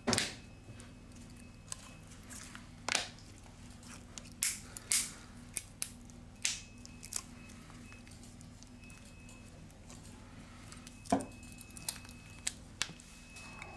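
Back cover of a Huawei Y6 2019 smartphone being pressed onto the phone's frame: irregular sharp clicks and snaps as its clips seat. The loudest snaps are at the start and about eleven seconds in.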